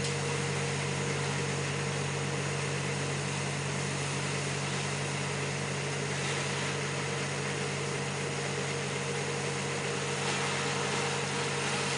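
A machine running steadily at constant speed, with an even low hum and a fainter higher steady tone.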